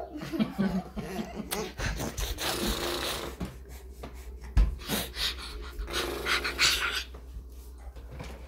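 A toddler laughing hard in breathy, panting gasps, with short knocks and rubs from a phone being handled.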